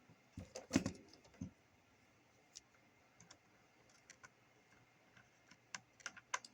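Small clicks and taps from handling the radio's parts and tools on a workbench. A few duller knocks come in the first second and a half, then scattered sharp clicks, with a quick cluster of them around six seconds in.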